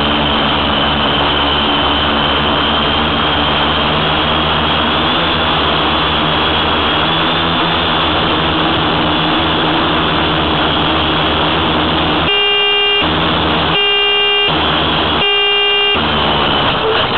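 Tricopter's electric motors and propellers running steadily with a high whine and rushing noise. Near the end come three long beeps, about a second and a half apart.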